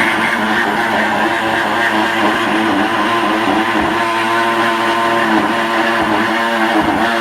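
A power cutting tool running continuously as it cuts through the steel body panel. Its motor pitch wavers slightly under load.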